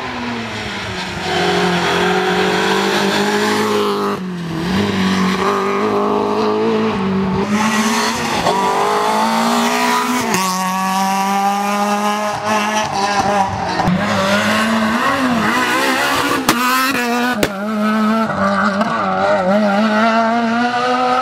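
Rally car engine at full race pace, its pitch climbing hard through the revs and dropping sharply at each gear change, with tyre squeal. Two sharp cracks come late on.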